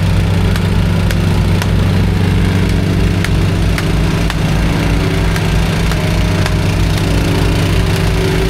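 An engine of paving or earthmoving equipment running steadily at constant speed, with scattered sharp clicks over it about once a second.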